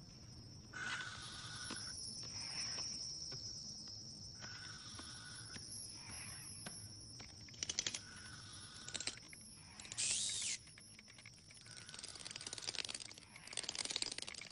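Sci-fi ambient sound effects: a steady high-pitched whine under a softer tone that comes and goes every few seconds, with scattered clicks and ticks and a short bright electronic whoosh about ten seconds in.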